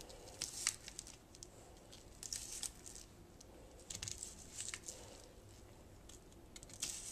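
Chef's knife dicing green bell pepper strips on a cutting board: faint, irregular chops, several in quick clusters with short pauses between.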